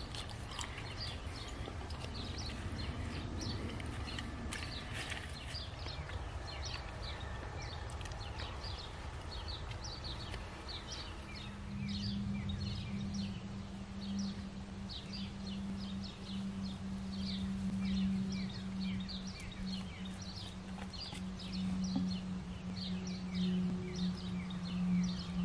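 Small birds chirping in the forest, short high calls repeated several times a second, over a low rumble of wind. About halfway in, a steady low humming tone comes in and grows louder near the end.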